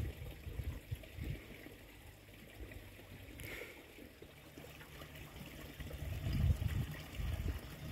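Faint trickling of a geothermal stream of running hot water, with a few low muffled bumps about six seconds in.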